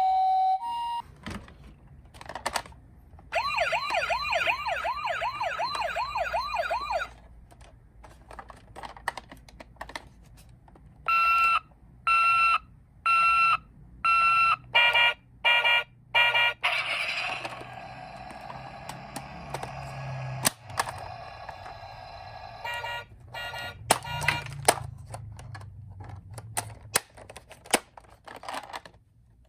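Toy ambulances' electronic sirens: a two-tone hi-lo siren that cuts off about a second in, then a fast wailing yelp for a few seconds, then a run of short, evenly spaced beeps. Clicks and rattles come in between and toward the end.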